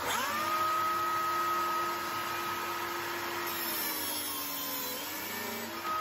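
Makita biscuit joiner switched on: its motor whine rises quickly and settles into a steady high whine. Past the middle the pitch sags and wavers as the blade plunges into the wood to cut a biscuit slot, then climbs again near the end. A steady hiss from the attached dust extractor runs underneath.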